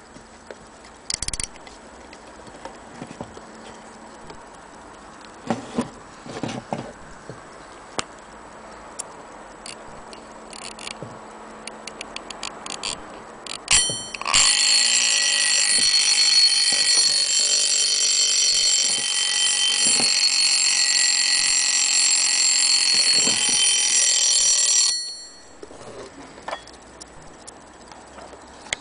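Antique mechanical alarm clock: scattered clicks as the knobs on its back are turned, then its alarm bell rings loudly and without a break for about ten seconds before it stops suddenly.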